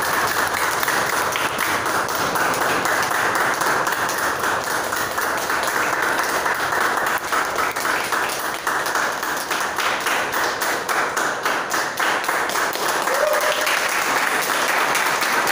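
A small group of people applauding, hands clapping steadily and continuously.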